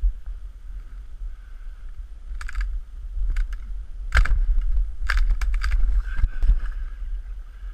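Dry, dead conifer branches crackling and rustling as someone pushes through them by hand. A string of sharp cracks starts about two and a half seconds in, with the loudest just past the middle, over a low wind rumble on the microphone.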